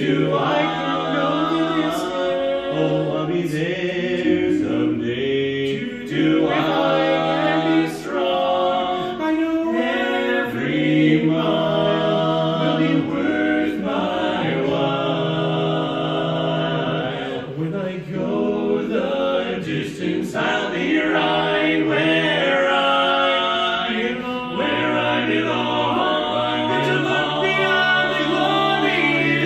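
A male barbershop quartet singing a cappella in close four-part harmony, the four voices holding and moving between sustained chords together.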